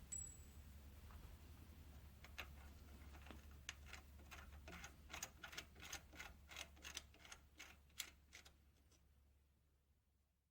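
Faint, irregular metallic clicks and ticks as a tap is worked to cut the threads deeper in a cast-iron carburetor mixer, over a low steady hum. The clicks stop about two seconds before the end, leaving dead silence.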